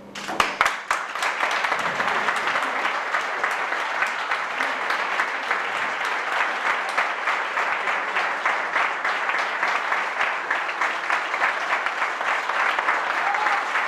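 Applause from a roomful of people: a few separate claps at the start, swelling within about a second into steady clapping that runs on evenly.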